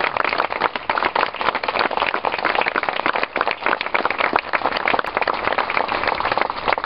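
A crowd applauding, with many overlapping handclaps.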